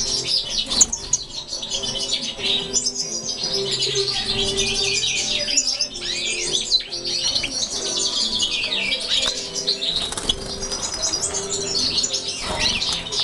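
Caged European goldfinches twittering and singing: a dense, continuous stream of quick high chirps, trills and pitch glides from several birds at once.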